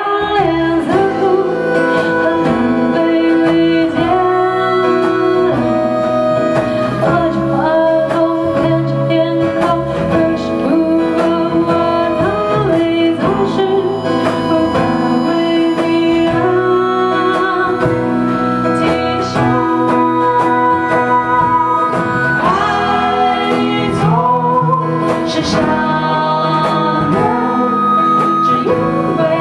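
Live acoustic song: a voice singing a melody over strummed and picked guitar.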